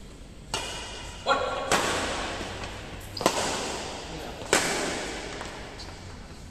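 Badminton racket strikes on a shuttlecock during a doubles rally: five or so sharp hits at uneven intervals, each one echoing in a large, hard-walled hall.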